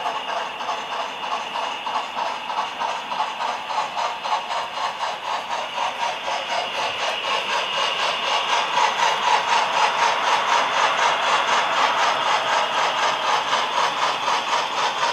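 HO scale model trains running on the layout: wheels clicking in a rapid, even rhythm over the track, with a faint steady whine from the locomotive motors. It gets a little louder about halfway through.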